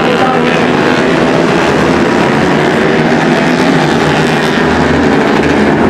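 Loud, steady running of several racing motorcycle engines together, tuned Honda CRF150L supermoto bikes.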